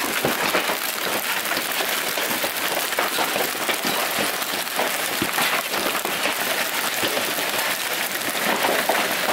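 Hail pelting a swimming pool and the concrete deck and lawn around it: a dense, steady patter of countless small hits and splashes.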